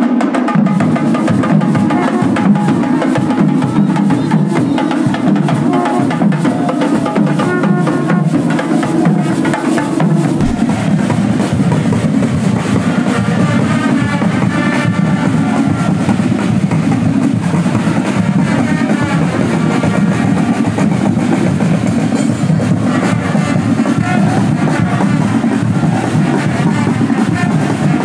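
Carnival skin-drum band (a Guadeloupean groupe à peau): many strap-slung hand drums and maracas beating a fast, dense rhythm, with voices singing over it at times. The sound changes abruptly about ten seconds in, as if cut to another group.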